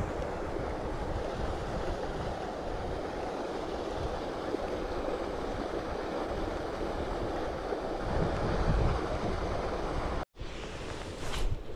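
Steady wind noise on the microphone over a rippled lake. The sound cuts out for a moment near the end.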